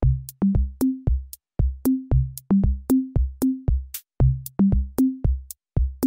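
Electronic music with a drum-machine beat and a bouncy bass line, kicking in abruptly; sharp hits come about three to four times a second.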